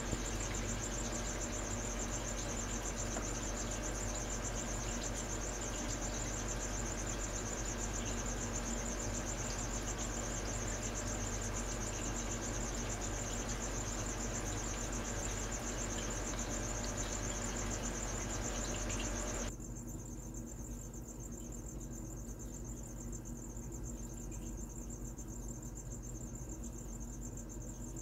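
Cricket chirping in a steady high trill over a low hum and hiss. About 19 seconds in the hum and hiss drop suddenly while the trill carries on.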